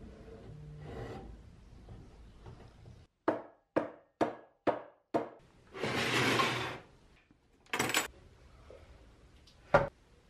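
A run of six sharp clicks, about two a second, then a plastic drill case sliding across a wooden workbench with a rough scrape lasting about a second. Two sharp snaps follow, spaced about two seconds apart, as the case's latches are undone.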